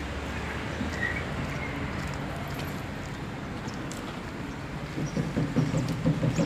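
Coach diesel engine idling, a steady low hum that grows louder and more uneven near the end.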